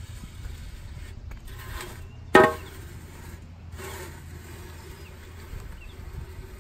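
Metal scoop shovel scooping and scraping topdressing, with one loud metallic clang that rings briefly about two and a half seconds in as the blade strikes a hard surface. A steady low hum runs underneath.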